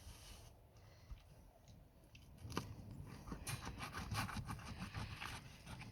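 Quick small clicks and scraping, getting busier and louder about two and a half seconds in: food and kitchen things being handled while a sandwich is put together.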